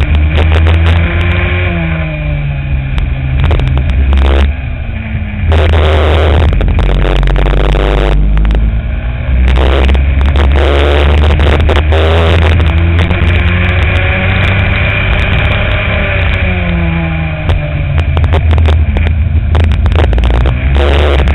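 Racing kart engine at speed, heard from on board the kart, its note climbing along the straights and falling twice as it slows for corners, over a heavy low rumble.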